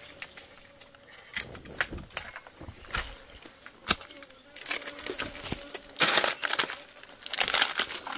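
Footsteps crunching through dry leaf litter and twigs on rocky ground: bouts of rustling and crackling with scattered snaps and clicks, louder in the second half.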